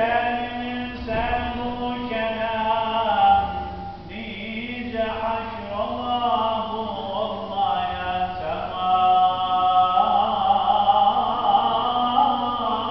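A man's voice chanting an unaccompanied Islamic religious recitation in long, ornamented held notes. It breaks off briefly about four seconds in and grows louder from about nine seconds.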